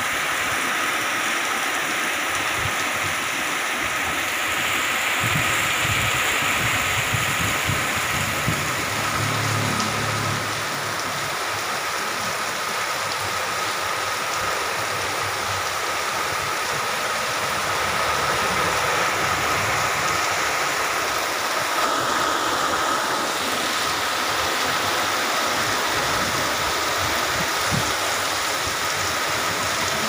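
Heavy tropical downpour pouring steadily, a dense unbroken hiss of rain.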